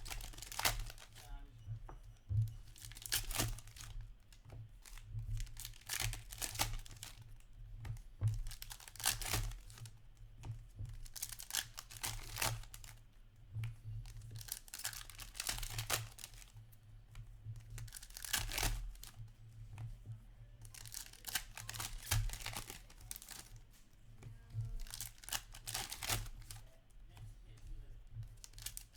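Foil wrappers of hockey card packs being torn open and crinkled, in repeated short bursts every couple of seconds, over a faint steady low hum.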